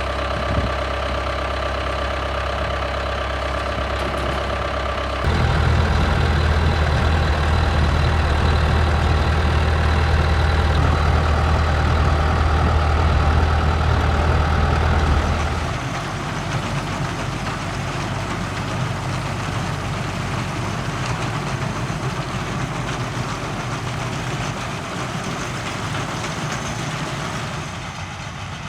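John Deere 5820 tractor engine running steadily with the Krone baler working. The engine gets louder with a deep steady hum about five seconds in, and drops back about sixteen seconds in.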